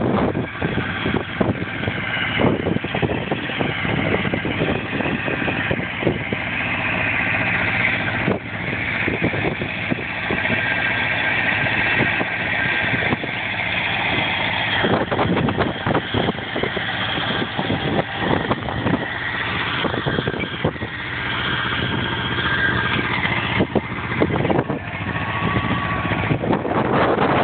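Tractor engine running steadily while pulling a plough, with frequent irregular knocks and rattles over the drone.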